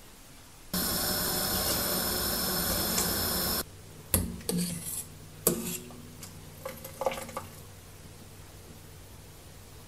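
A steady hiss of egg noodles boiling in a stainless steel pot for about three seconds, cutting off abruptly. Then several clinks and knocks of a metal strainer against the pot and a ceramic bowl as the noodles are lifted out.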